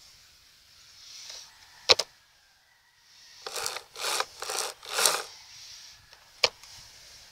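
Hands handling a Greenworks 40 V cordless chainsaw that is not running: a sharp click, then four short rasping scrapes in quick succession, then another sharp click.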